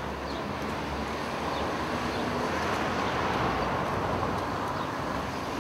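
A motor vehicle drives past close by over steady street traffic noise, its engine and tyre sound swelling to a peak a little past the middle and then easing off.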